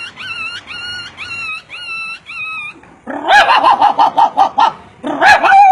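A dog's high whimpering cries, six in a row about half a second apart, then a quick run of shorter, lower yips and a loud drawn-out cry near the end.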